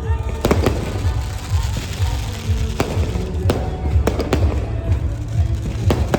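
Fireworks bursting: about eight sharp bangs at irregular intervals, over music with a pulsing bass.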